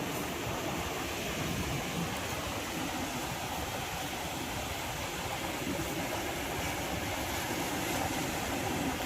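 Steady wash of sea surf breaking along the shore.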